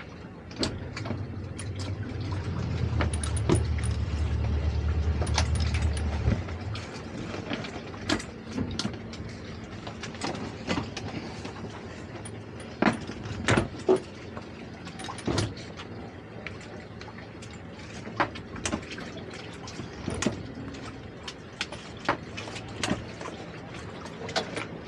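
Towboat engine throttled up, its low hum swelling for about six seconds and then easing back to idle. After that come scattered knocks and clicks from lines and deck hardware between the two hulls.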